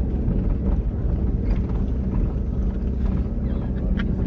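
Engine and road noise of a moving vehicle: a steady low rumble.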